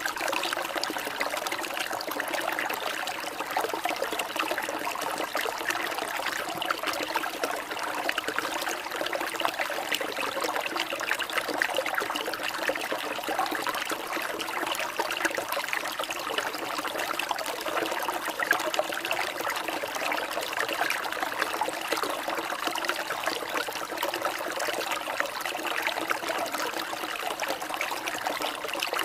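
Water trickling and babbling steadily, like a small stream, used as a relaxing background sound.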